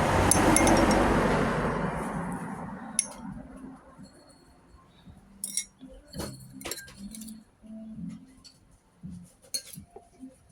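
A passing vehicle's noise swells and fades over the first three seconds or so, then scattered clinks of dishes, cutlery and glasses.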